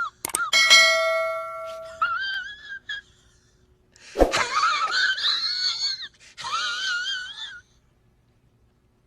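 Meme sound-effect clips in sequence: a high, wavering wail with a fast vibrato, a bell-like ding ringing out about half a second in, then two more wavering wails, and silence for the last second and a half.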